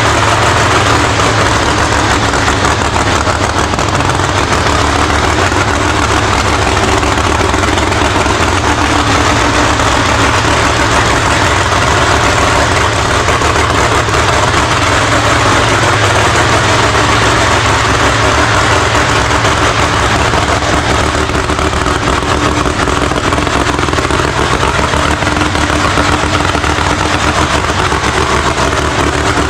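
Drag race car engine idling steadily, a continuous even run with no revving.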